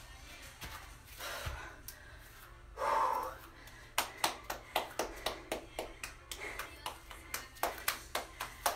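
One person clapping her hands, about three claps a second, starting about four seconds in. Just before the claps comes a short loud exhalation, from a person out of breath after a set of burpees.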